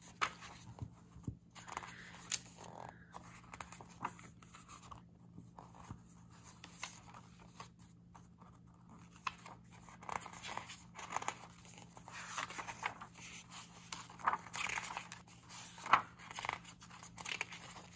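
Glossy paper pages of a paperback book being turned by hand: soft, scattered rustles and swishes, with a few louder page flicks in the second half.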